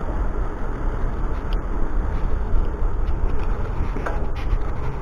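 Wind rushing over an action camera's microphone on a moving bicycle: a steady low rumble, with a few faint clicks about four seconds in.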